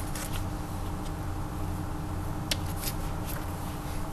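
Paper pages of a book being handled and turned, giving a few short rustles over a steady low background hum.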